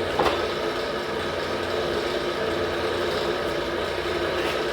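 A machine running steadily with an even, unchanging hum, and one short knock about a quarter of a second in.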